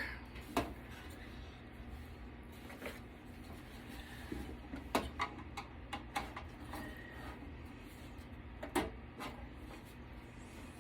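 Scattered sharp clicks and knocks of tools and metal computer parts being handled while an HP desktop is taken apart for scrap, a few separate knocks spread over the stretch.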